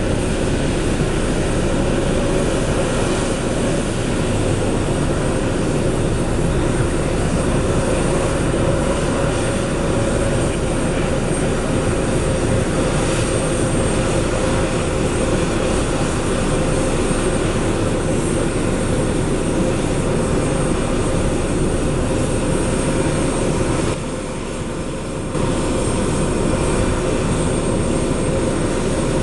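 Embraer E190 airliner's jet turbines running with a steady whine while it is pushed back by a tug. The sound dips briefly about three-quarters of the way through.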